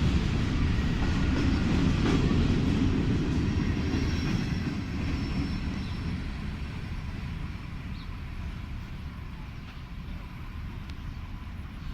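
Ferrosur freight train rolling by with a low rumble and wheel clatter, fading steadily as it moves away.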